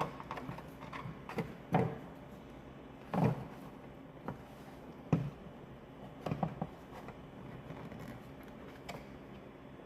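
Handling noises from a plastic instrument cluster housing as a wiring harness is fed through it: a few separate light knocks and rustles a second or two apart.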